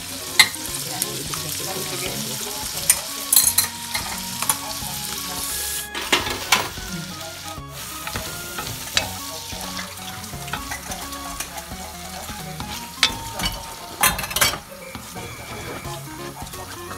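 Squid, peas and tomato sauce sizzling in a hot nonstick pan while being stirred, with a spatula scraping and knocking against the pan now and then.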